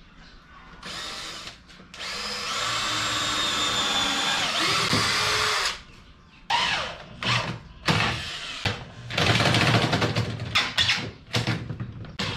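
Cordless drill boring a pilot hole into phenolic plywood board: a brief spin, then about three and a half seconds of steady drilling that slows near the end. Then a string of short stop-start drill bursts, as screws are driven into the leg.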